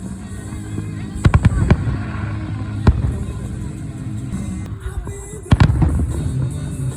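Fireworks going off in sharp bangs over background music: a quick run of four or so about a second in, a single bang near three seconds, and another cluster a little after five seconds.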